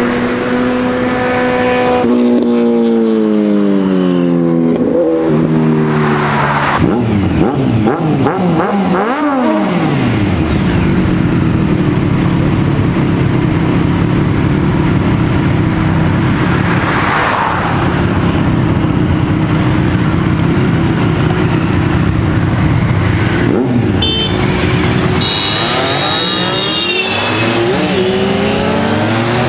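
Sport motorcycle engines revving hard and passing at speed: the pitch drops steeply as each one goes by, with a long steady high-revving stretch in the middle. Near the end the revs climb in steps through quick gear changes.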